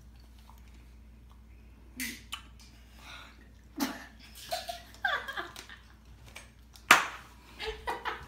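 Laughter and short wordless vocal noises from two children, starting about two seconds in after a quiet opening, with one sharp, loud sudden sound about seven seconds in.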